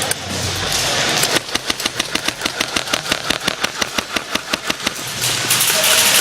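Airsoft gun firing a long, fast string of shots, about eight a second, for nearly four seconds starting about a second and a half in. A rustling, hissing noise of movement is heard before and after the string.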